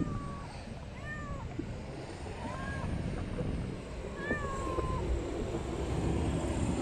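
Tabby street cat meowing four times, short meows that rise and fall about a second and a half apart, the last one drawn out longer.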